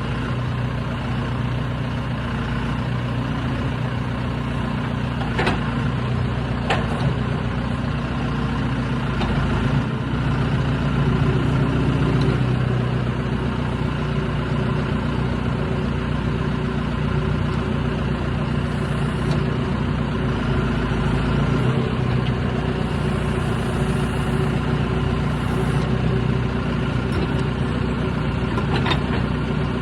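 Heavy diesel engine idling steadily, with a few short sharp clicks about five and seven seconds in and again near the end.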